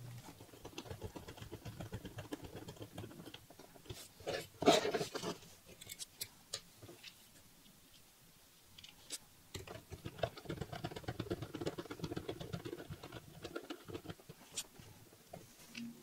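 Fast-forwarded small handling noises: a precision screwdriver driving the tiny heatsink screws into an M.2-to-PCIe adapter card and parts being handled on a cutting mat, the taps and scrapes sped up into a rapid run of clicks, with a louder clatter about five seconds in.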